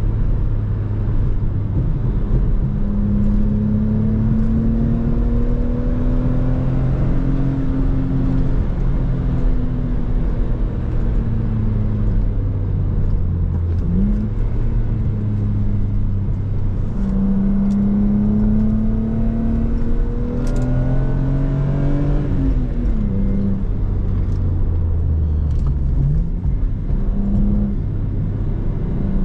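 Lexus IS300's 2JZ-GE inline-six engine under hard driving, its pitch climbing as it revs out and dropping back at lifts and shifts several times. Tyre and road noise run underneath.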